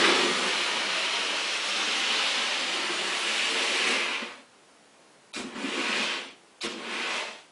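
Rivarossi HO-scale model of a Norfolk & Western Y6b 2-8-8-2 locomotive running on sectional track: a steady whirring rush of motor and wheels, loudest as it passes close and dropping away about four seconds in as it reaches the far end of the oval. Two short bursts of the same noise follow near the end.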